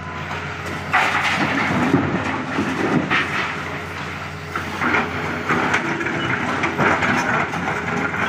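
Rock being dumped from an excavator bucket into a steel dump-truck body: a run of heavy crashes and clatters of stone on steel, beginning about a second in and coming again several times. Under it the excavator's diesel engine runs steadily.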